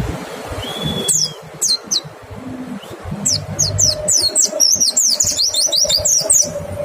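White-eye (pleci) singing: a few high, quickly falling whistled notes about a second in, then a rapid run of many falling notes from about three seconds in to near the end, the fast 'shooting' song used to draw other white-eyes into singing.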